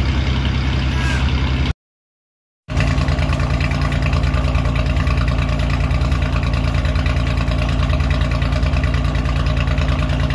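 Enclosed lifeboat's diesel engine running steadily during its safety test, a constant even drone. About two seconds in the sound drops out completely for about a second, then the same drone continues.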